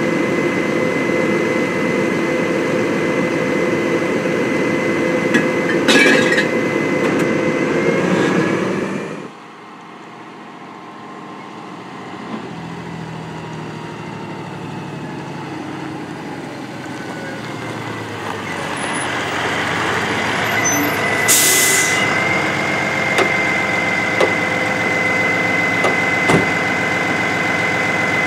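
Diesel engine of a Freightliner M2 recycling truck with a Heil Retriever body, running steadily while parked, with a clunk about six seconds in. After a sudden cut, the truck drives up and grows louder, gives a sharp air-brake hiss as it stops, then idles with a steady high whine and a few clicks.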